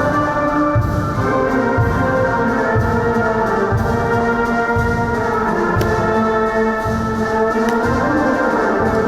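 Orchestral background music with held brass-like chords over a low beat about once a second.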